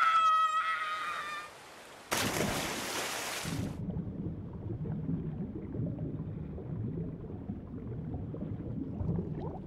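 A child's short cry, then a loud splash about two seconds in. A muffled, low underwater rumble with bubbling follows.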